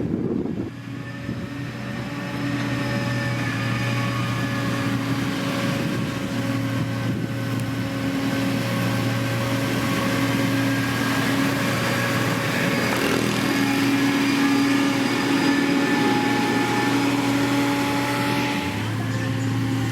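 Diesel engine of heavy road-construction equipment running steadily under load, with a slight shift in its note near the end.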